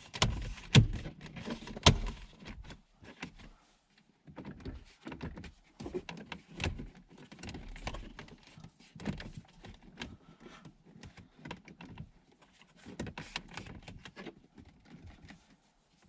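Plastic knocks and clicks as an aftermarket Android head unit is pushed into a car's dashboard and seated in its retaining clips. Several loud thumps come in the first two seconds, followed by scattered lighter clicks and rustling.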